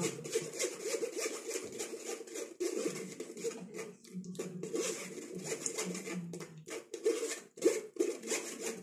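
Metal spoon scraping and pressing cooked tomato pulp through a fine metal mesh sieve, in quick, irregular rubbing strokes, a few a second.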